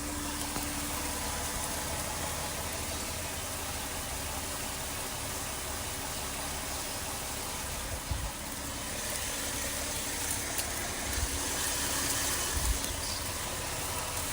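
2019 Dodge Durango engine idling steadily and sounding normal, with no rattle yet because it has not been driven long enough to get hot; at most a slight tick. A couple of faint thumps come about eight seconds in and again near the end.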